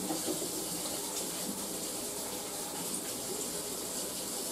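Kitchen tap running in a steady stream while hands are washed under it.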